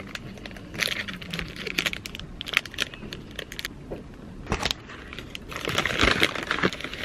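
Snack packaging and a paper bag crinkling and rustling in the hands, in irregular bouts of crackling. The loudest bout comes near the end, as the paper bag is scrunched up.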